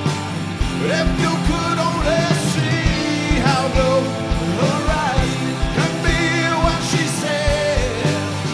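Live rock band playing loud: drum kit keeping a steady beat under electric guitars, bass and keyboard.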